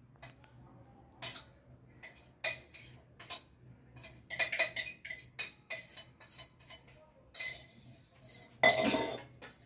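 Stainless steel kitchen vessels and lids clinking and knocking against each other as they are handled, in scattered separate knocks, with a longer, louder clatter near the end.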